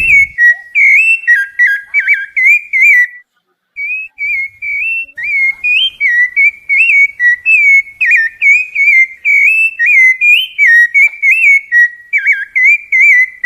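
A sabiá (a Turdus thrush) singing a continuous run of clear whistled notes that swoop up and down, several a second. The song breaks off briefly about three seconds in.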